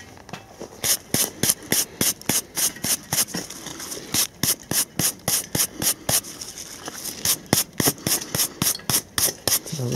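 Gloved hand rubbing soil off a rusted iron fragmentation sleeve from a German stick grenade in quick repeated strokes, about four a second, with a short pause a few seconds in.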